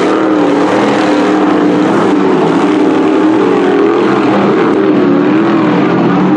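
Dirt sportsman modified race cars running at full race pace, their crate 602 V8 engines overlapping in a steady loud drone whose pitch rises and falls as the cars work through the turns.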